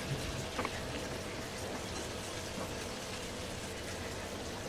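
Malabar spinach and salted hilsa simmering in the liquid the greens have released, a steady bubbling sizzle in the pan, with a light knock or two in the first second.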